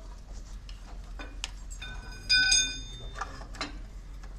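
Steel crowbars knocking and clinking against the metal of a railway coach bogie, with one loud ringing clang a little over two seconds in.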